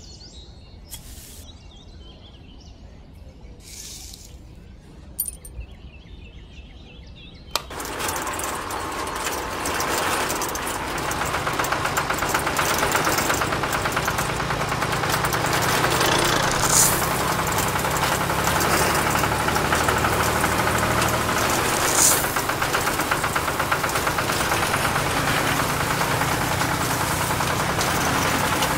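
A tiny spoon scraping and scooping fine gravel, a few short rasps. Then, about seven and a half seconds in, the small motor of a miniature model truck starts suddenly and runs steadily with a fast rattle.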